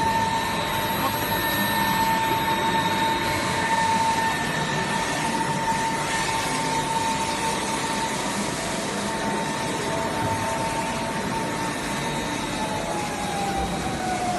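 The electric motor of a 50 L vacuum emulsifying mixer runs with a steady high whine over a constant machine hum. Near the end the whine starts to fall in pitch.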